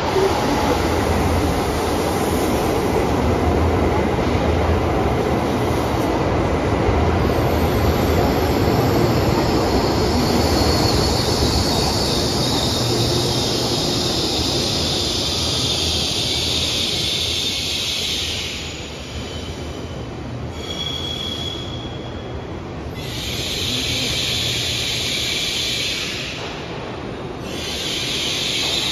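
N700S Shinkansen train pulling into the platform and braking to a stop. Its running noise carries a high whine that falls steadily in pitch as it slows. After it stops, a few short bursts of hissing follow.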